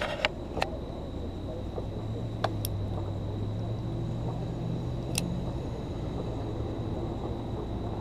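A low engine hum, like a vehicle running, that swells from about a second in and fades near the end. A few sharp clicks come early and twice more, and a thin high whine holds steady under it all.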